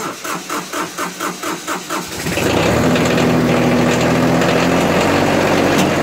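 John Deere 4110 compact tractor's diesel engine cold-started after the glow plugs: the starter cranks it in even pulses, about five a second, for some two seconds, then it catches and settles into a steady idle.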